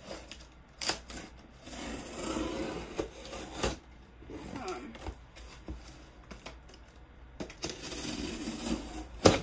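A dull knife, gummed with sticky tape adhesive, rasping and sawing at a cardboard box to cut it open, with a few sharp knocks, the loudest near the end.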